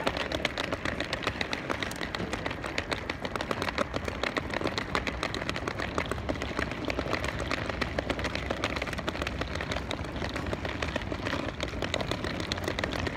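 Wheeled suitcases rolling over paving stones, their small wheels clattering in a rapid, irregular run of clicks, over the low hum of road traffic.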